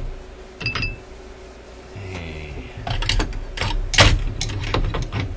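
Sharp little metallic clicks and taps as small parts and tools are handled on a record changer mechanism, a few at first and then a quick run of them, loudest about four seconds in.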